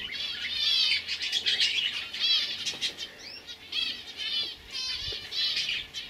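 Young domestic canaries singing: fast trills of quickly repeated arched chirps, one phrase running into the next without pause.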